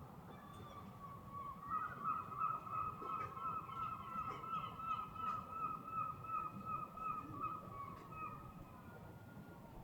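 A bird calling in a fast run of short, high notes, about four or five a second, lasting some seven seconds before it fades, over a faint low rumble.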